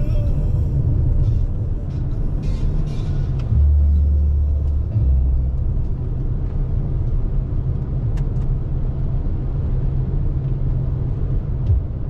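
Steady low road and tyre rumble of a 2021 Toyota RAV4 Hybrid driving on a snow-covered road, swelling into a louder low boom for about a second and a half starting about three and a half seconds in.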